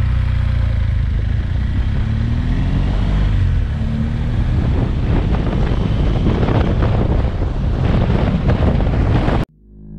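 Motorcycle engine running while riding down a winding road, its note rising and falling, with heavy wind buffeting on the microphone. The sound cuts off suddenly near the end and music fades in.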